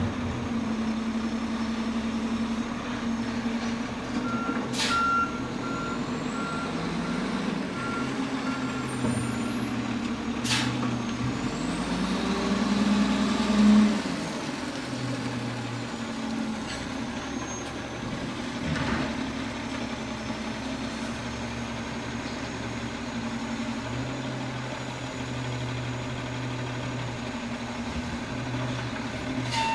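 Garbage truck's diesel engine running steadily, with its backup alarm beeping repeatedly for about five seconds a few seconds in. Two sharp clicks stand out, and about halfway through the engine rises in pitch and loudness, then drops back suddenly.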